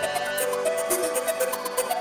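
Electronic organ playing a melody of short, changing notes in the middle register, over a fast beat of quick high ticks.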